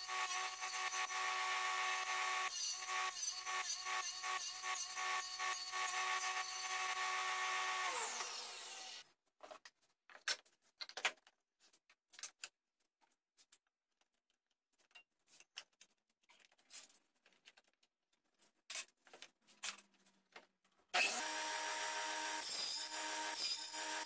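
Table saw running through box joint cuts on a jig, then switched off about eight seconds in, its blade winding down. Scattered light taps and scrapes of hand work follow in the quiet, and the saw starts up again abruptly near the end.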